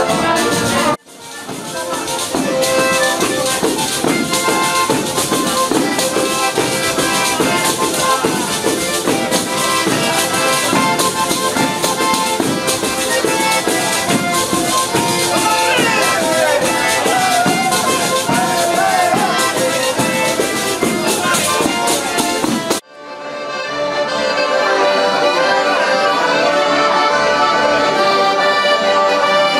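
Southern Italian folk dance music with a fast shaken-percussion beat under a reedy melody. It breaks off abruptly about a second in and again near 23 s; after the second break a zampogna, the southern Italian bagpipe, plays a melody over steady drones.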